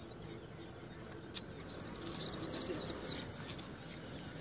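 Quiet open-air ambience with birds calling faintly, and a few light clicks.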